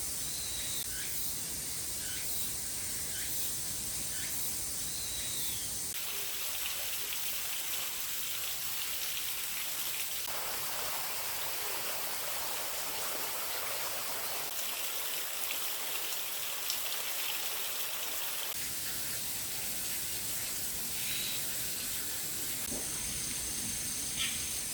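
Flowing stream water, its rush changing abruptly several times as the recording cuts between spots. A few short bird chirps and a steady high-pitched whine are heard at the start and again near the end.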